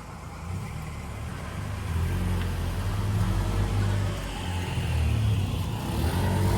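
A vehicle passing close by: a low rumble that swells about two seconds in and stays strong, with a hiss of noise over it.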